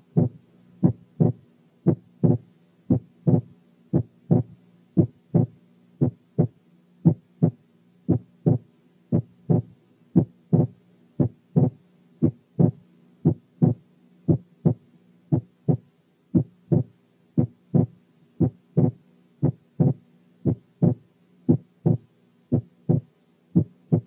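Recorded human heart sounds, a steady rhythm of short lub-dub thuds at about two a second, with breath sounds filtered out. The second heart sound splits into two close components during inspiration only: normal physiological splitting of S2. A faint steady hum runs beneath.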